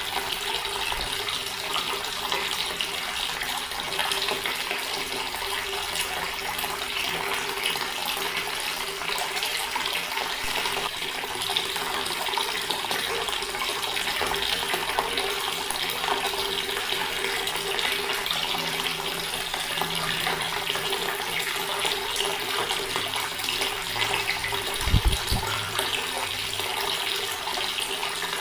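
Water running steadily from a tap and splashing, an even rushing hiss with no pauses. Near the end there is one brief low thump.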